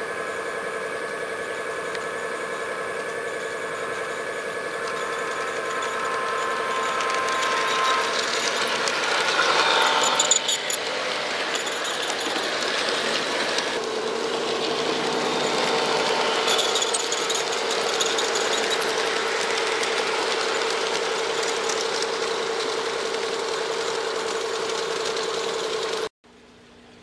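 G-scale model train running on a garden railway: a steady engine-like drone with wheels rattling over the track. It grows louder over the first ten seconds, peaks briefly, then runs evenly until it cuts off abruptly near the end.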